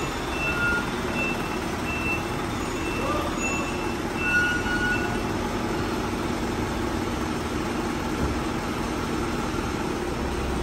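Isuzu Elf NMR71 tow truck reversing, its diesel engine running steadily. A reversing alarm beeps about twice a second for the first five seconds or so, then stops.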